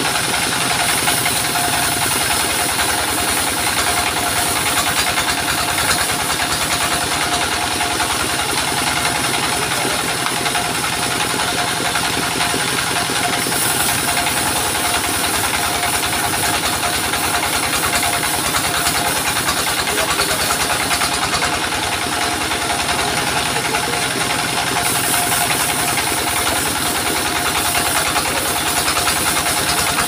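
Single-cylinder stationary diesel engine running steadily, driving a sawmill's circular saw as waru logs are fed through and cut.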